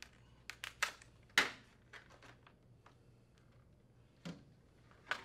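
Plastic retaining clips on a Frigidaire air conditioner's front grille snapping as they are pulled back to release the control panel: a quick run of sharp clicks, the loudest about one and a half seconds in, then a single knock about four seconds in.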